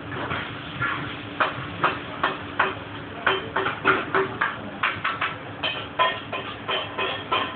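Kitchen clatter: irregular knocks and clinks of metal utensils against steel pots and worktops, two or three a second, over a steady low hum.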